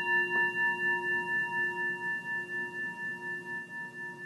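A meditation bell, struck just before, ringing on: several steady tones fading slowly with a regular wavering pulse, about three a second.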